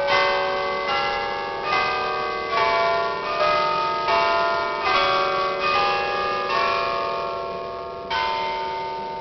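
Church tower bells ringing a slow, uneven run of different notes, about one strike a second, each note ringing on into the next, with a longer pause before a last strike near the end: the 8 a.m. chime.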